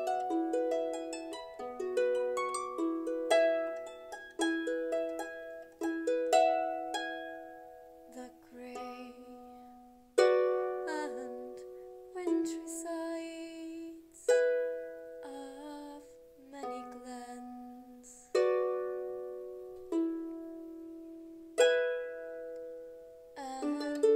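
Harp music: slow plucked single notes and fuller chords that ring and fade away, with a stronger chord struck every few seconds in the second half.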